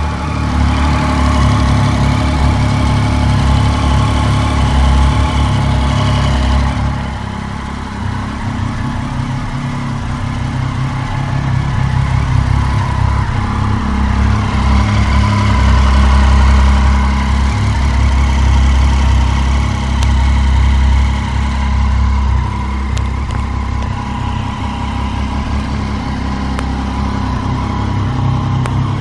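2013 Triumph Street Triple's 675 cc inline three-cylinder engine running, its sound swelling and easing a few times: louder for the first several seconds, dropping back about seven seconds in, then swelling again around the middle.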